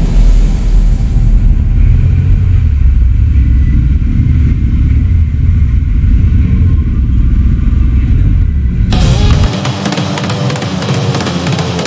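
Low rumble of a motorcycle moving slowly, picked up by a camera on the bike. About nine seconds in, loud rock music cuts in.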